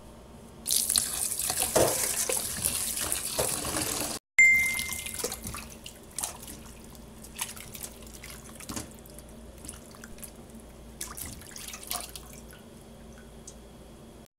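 Kitchen tap running hard into a stainless-steel bowl holding a raw octopus in a sink for about three and a half seconds. After a cut comes a short ringing tone, then softer splashing, clinks and knocks as the octopus is rinsed and handled in the water.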